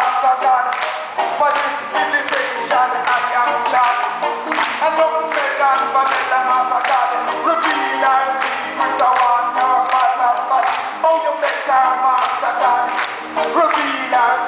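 A man singing unaccompanied through a PA microphone, holding long notes, while the audience claps along in a steady beat.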